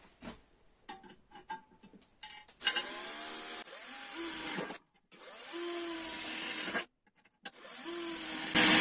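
Cordless drill drilling a hole through an enamel steel pot, run in three bursts with short pauses between them. The motor speeds up at the start of the first burst and runs loudest near the end. A few light handling clicks come before it starts.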